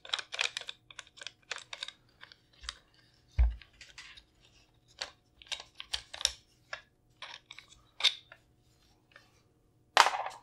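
Clicks and light knocks of hands working the polymer stock of a bullpup shotgun while unscrewing its cheek rest: a quick run of clicks in the first two seconds, then scattered clicks, a dull thump about three and a half seconds in, and a louder clatter near the end.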